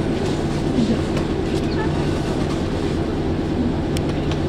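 Steady electric hum of a Kotoden electric train standing at a station, heard from inside the cab, with a couple of faint clicks.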